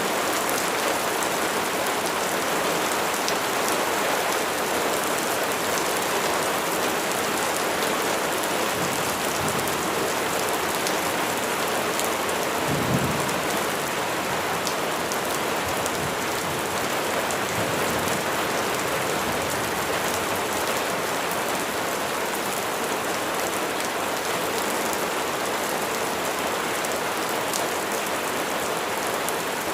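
Steady rain falling on a surface, a dense even hiss. About halfway through comes a brief low rumble or thump.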